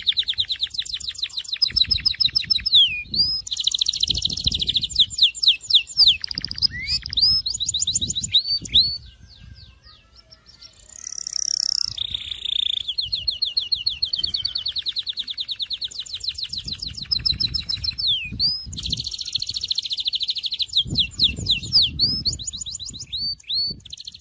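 Syrian canary singing: long, fast trills of rapidly repeated notes mixed with quick rising and falling whistles, high-pitched, with a brief pause a little before the middle before the song picks up again.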